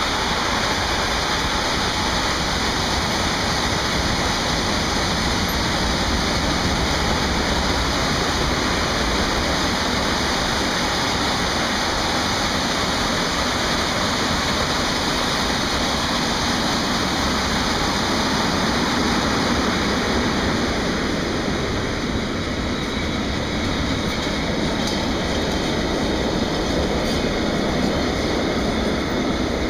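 Freight train of sliding-wall boxcars rolling past at speed: a steady rushing rumble of steel wheels on the rails. The sound eases slightly about two-thirds of the way through as the last wagons go by.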